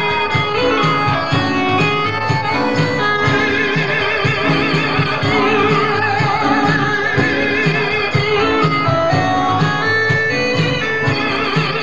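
Yamaha DX100 FM synthesizer playing a lead solo from a Korg RK100 keytar, the held notes wavering with heavy vibrato, over a sequenced backing track from an Ensoniq ESQ-1 with a steady, pulsing bass.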